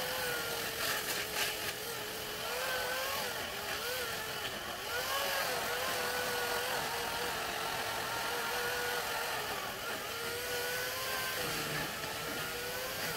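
Chainsaw running hard as it cuts through a tree trunk, its pitch repeatedly dipping and recovering as the chain bites into the wood.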